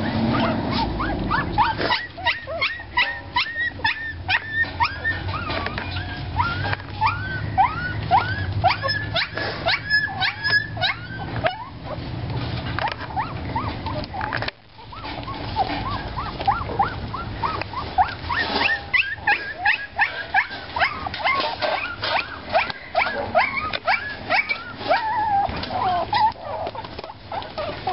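A litter of three-week-old puppies whimpering and squeaking as they play: a run of many short, high squeals, with a brief pause about halfway.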